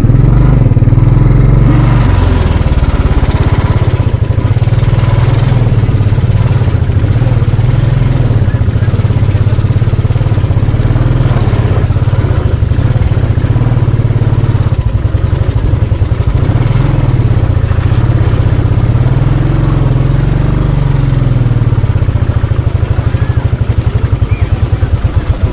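Motorcycle engine running at a steady pace, its low note shifting slightly in pitch.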